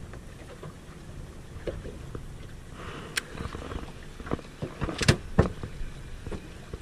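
Wind and water noise around a small fishing boat at sea, with scattered sharp knocks and clicks of gear against the boat, loudest in a cluster about five seconds in.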